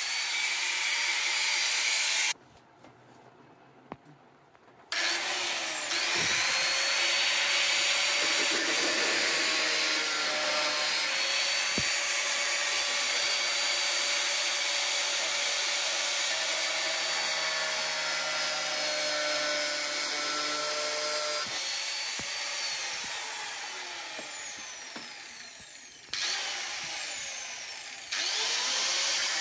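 Electric angle grinder running with an abrasive disc, grinding the edge of a small printed circuit board: a steady whine over grinding noise. It cuts out briefly a few seconds in, then starts again. Later it winds down with falling pitch and starts up again near the end.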